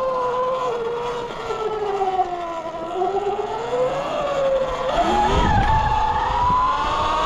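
Electric hub or mid-drive motor of a 72-volt E-Ride Pro electric dirt bike whining, its pitch falling as the bike slows over the first three seconds, then rising again as it speeds up. Wind rumble on the microphone joins from about five seconds in.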